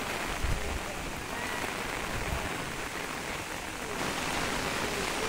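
Steady rain falling, an even hiss, with a brief low thump about half a second in.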